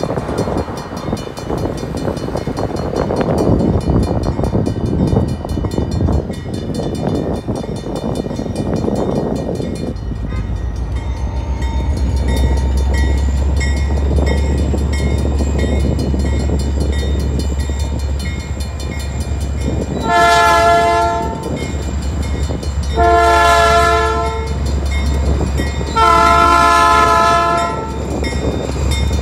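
Cars passing a grade crossing while the crossing bell rings. From about ten seconds in comes a low steady rumble as the train nears. Then the locomotive's multi-note horn sounds three blasts, each a little longer than the last, the usual grade-crossing warning signal.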